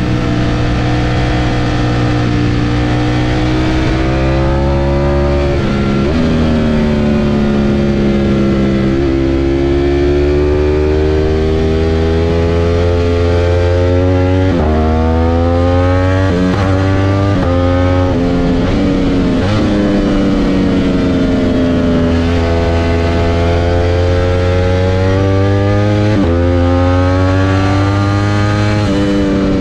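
Ducati Panigale V4 S's V4 engine heard from the rider's seat, running hard through the gears. Its pitch climbs under throttle and sags as it rolls off, with several sudden drops in pitch at the gear changes.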